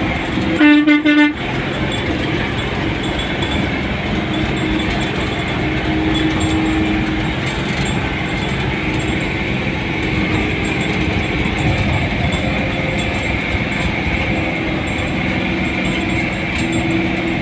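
A vehicle horn sounds in a few quick toots about a second in, over steady engine and road noise heard from inside the moving vehicle's cab.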